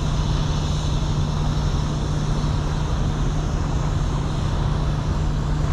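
Steady rushing of river current, with a constant low hum underneath.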